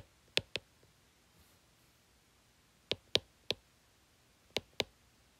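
Sharp clicks in three quick groups of two or three, a second or more apart, over quiet room tone.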